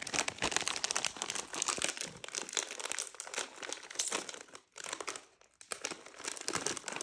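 Crisp packet being handled and opened: dense, crackly crinkling of the foil-lined bag, with two brief pauses a little after the middle.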